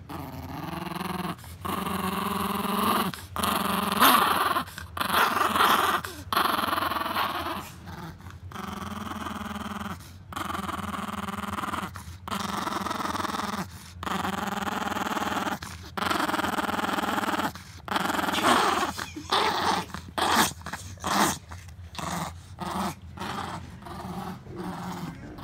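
Chihuahua growling over a stuffed toy it is tugging at, in long steady growls broken by brief pauses; the growls grow shorter and choppier in the last few seconds.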